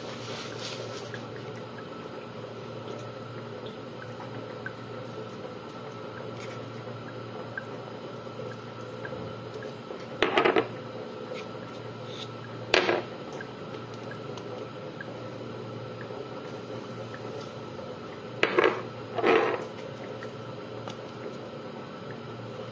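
A spice bottle shaken over raw chicken: four short rattling bursts, two spaced apart and then two in quick succession later on, over a steady background hum.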